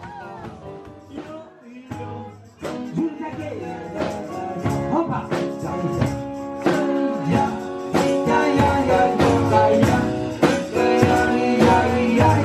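Live acoustic rock: strummed acoustic guitar with singing and a tambourine. It is quiet at first, then the playing picks up and grows louder about two and a half seconds in.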